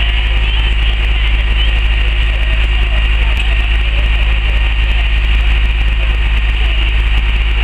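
A fire engine's diesel engine running steadily at idle: a constant low rumble with an even hiss above it.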